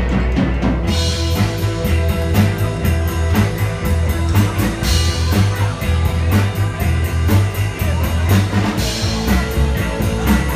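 Live rock band playing, a drum kit driving a steady beat under a moving bass line, with cymbal crashes about a second in, near the middle and near the end.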